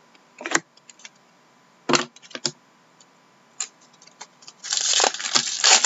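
Hockey card packs being torn open and the cards handled: foil wrappers crinkling and cards clicking and sliding against each other. There are a few separate sharp clicks at first, then a stretch of dense rustling in the last second or so.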